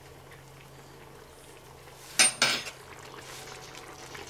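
A spoon clinks twice against a cast iron skillet about two seconds in. A wooden spoon then stirs the simmering mushroom sauce.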